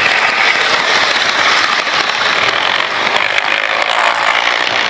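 OO gauge model train running close by, its wheels rattling steadily along the track in a fast, dense clatter.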